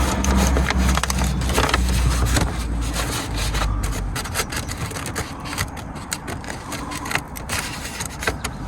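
Sheet of paper crinkling and rustling as it is pressed and rubbed by finger against a car's body panel to take a template of the rusted area. It makes a dense run of crackles, with a low rumble under the first few seconds.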